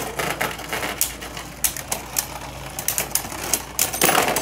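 Three Beyblade Burst spinning tops (Geist Fafnir, Lúinor, Valtryek) whirring and knocking into each other in a plastic stadium: a rattling hiss with rapid, irregular clicks, and a louder clash about four seconds in.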